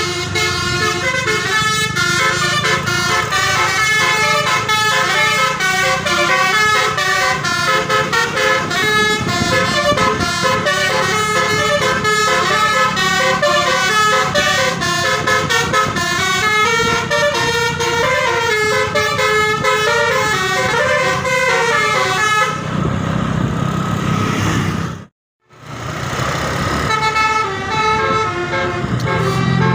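Telolet bus horn, run from a phone-controlled ARF Tech horn module, playing a fast tune of short stepped notes. The tune stops about three-quarters of the way through, leaving engine and road noise and a brief gap in the sound. The horn starts up again, fainter, near the end.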